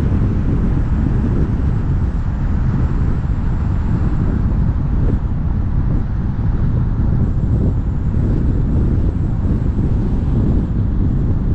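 Ford Fusion driving along a road: a steady rumble of tyre and road noise, heaviest in the lows, with wind buffeting the microphone.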